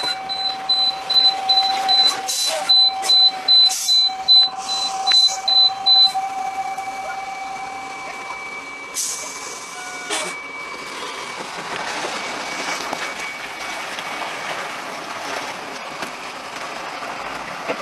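Quick, repeated high electronic beeping, about two beeps a second, over traffic and engine noise, with a few loud clicks; the beeping stops about six seconds in.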